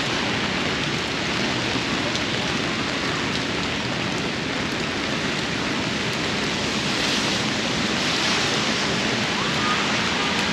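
Steady heavy rain, a dense, even hiss.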